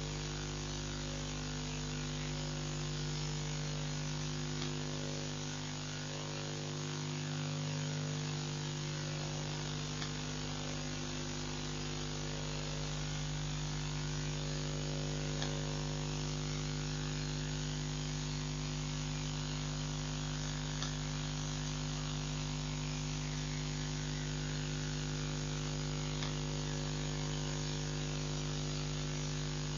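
Steady electrical hum with hiss, and a few faint ticks.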